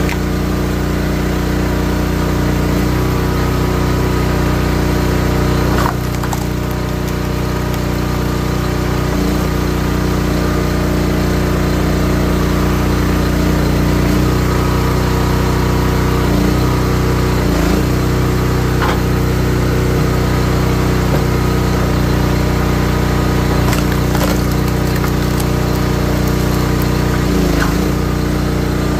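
Gas engine of a 28-ton hydraulic log splitter running steadily, bogging down briefly several times as the ram is loaded pushing through firewood rounds. A few sharp cracks of wood splitting come through over it.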